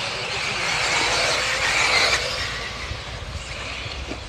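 Electric RC off-road buggies racing on a dirt track: a high hiss of motors and tyres on loose dirt that grows louder as the cars pass close for about two seconds, then fades as they move away, over a low rumble.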